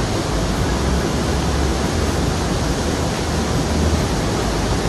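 Waterfall and rapids rushing: a steady, loud roar of falling water.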